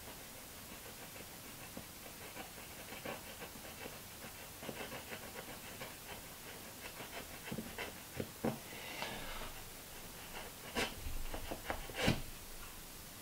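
Scalpel blade scraping and cutting around the edge of a drilled hole in a soft baseboard: a quiet run of fine scratching ticks, with a couple of sharper clicks near the end.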